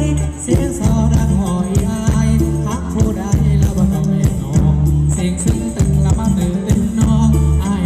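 Thai ramwong dance music played by a band: a heavy, evenly pulsing bass beat with a singing voice over it.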